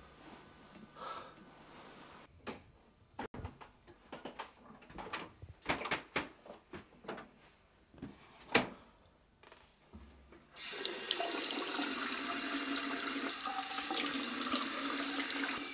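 Scattered soft knocks and clicks, then about ten and a half seconds in a bathroom sink tap is turned on and water runs steadily into the basin.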